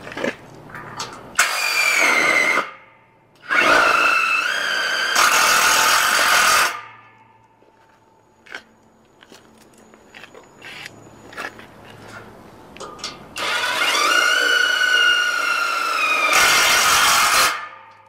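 Cordless power driver sinking self-drilling screws into the steel square-tube frame: three runs of motor whine and screw grinding into metal, the last and longest near the end, with clicks and knocks of the steel parts being handled in between.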